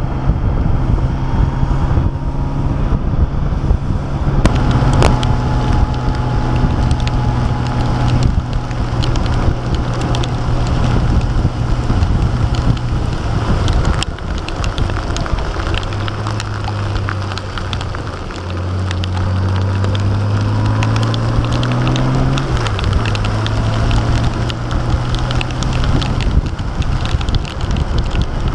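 Honda Goldwing GL1800's flat-six engine running steadily under way, over a constant rush of wind and wet-road tyre noise. Its pitch drops about halfway through, climbs for a few seconds, then falls back.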